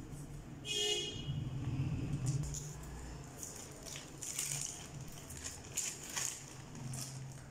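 Plastic courier bag and packaging crinkling and rustling as it is cut open and handled, busiest in the second half. A short horn toot sounds about a second in.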